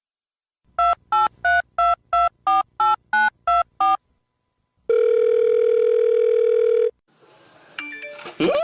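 Telephone keypad dialing: ten quick two-tone beeps, followed by a steady phone tone lasting about two seconds. A brief rising sound follows near the end.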